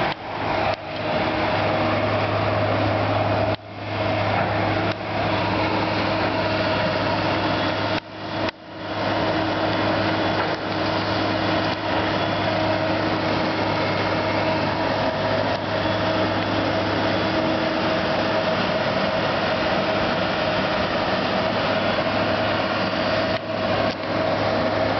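Diesel engine of a Kobelco long-reach demolition excavator running steadily, a constant hum under a broad hiss. The sound cuts out briefly a few times.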